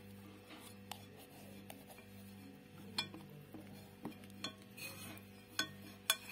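Glass baking dish clinking and knocking as spice-rubbed quail are handled in it: a scattering of short, sharp clinks, the loudest about three seconds in and just before the end, over a faint steady hum.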